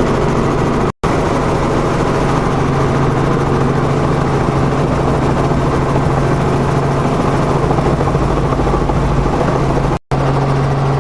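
Piston aircraft engine droning steadily with a constant low hum. The sound cuts out completely for a moment twice, about a second in and near the end.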